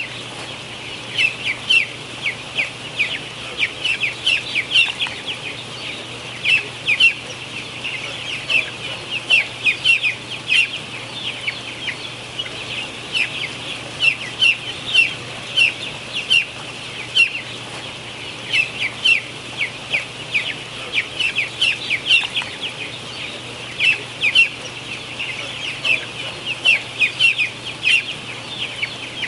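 A flock of young broiler chickens peeping continuously: many short, high, falling peeps, several a second, over a steady low hum.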